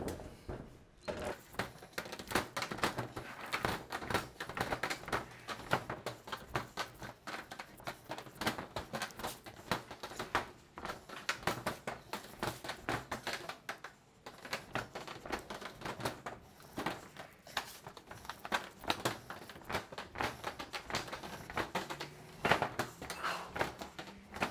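Hand tool clacking and clicking against corrugated steel roofing sheets as their top ends are bent up, a dense, irregular run of sharp metallic clicks with the sheet metal rattling.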